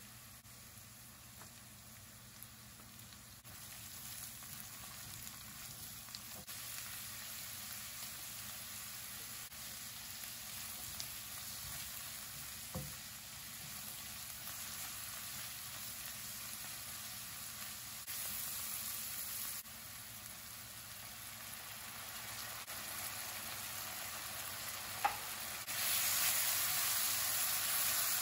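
Diced vegetables (onion, carrot, peas, capsicum, cabbage) sizzling in hot oil in a wok as they are stirred with a spatula. The sizzle grows louder in steps, jumping most sharply about two seconds before the end, with two brief knocks along the way.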